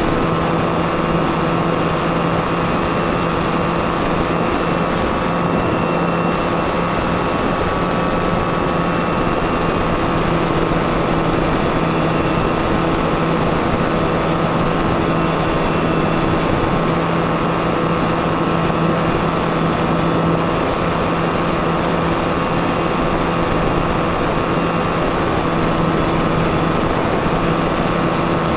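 Electric motor and propeller of a Skywalker FPV model plane droning at one steady pitch in cruise, with an even rush of airflow, heard through the camera mounted on the plane.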